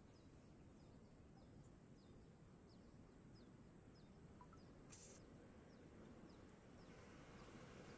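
Faint insect ambience: a high, thin buzz that stops about a second and a half in, and a faint short chirp repeating about twice a second. A brief rustle or click about five seconds in.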